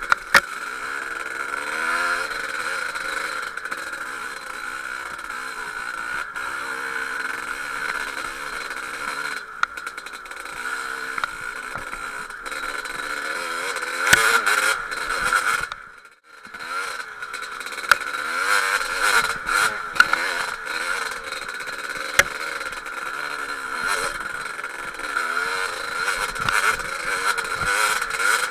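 KTM 250 two-stroke dirt bike engine running on a trail climb, its pitch rising and falling as the throttle is worked, with scattered clicks and knocks. The sound dips sharply for a moment a little over halfway through.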